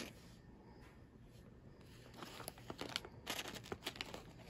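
Snack packaging being crinkled and torn open. It is faint for the first couple of seconds, then a run of crackling and tearing about halfway through lasts roughly two seconds.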